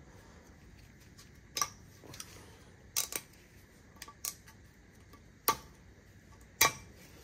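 Snap-ring pliers working a steel retaining clip into the groove of a newly pressed ball joint: a scattering of sharp metallic clicks, about eight, at uneven intervals, the loudest two near the end.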